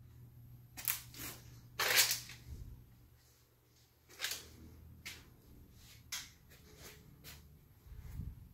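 Scattered soft clicks and rustles of a handheld phone being moved and of footsteps, the loudest about two seconds in, over a faint steady low hum.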